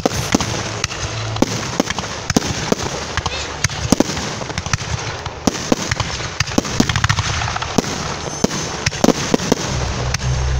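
Aerial firework shells bursting: many sharp bangs and crackles in quick, irregular succession.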